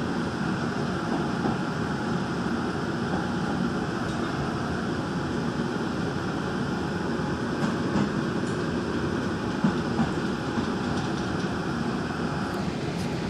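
Gwangju Metro Line 1 train running steadily along the track, heard from inside the passenger car: an even rumble of wheels and running gear, with a few light knocks about two thirds of the way through.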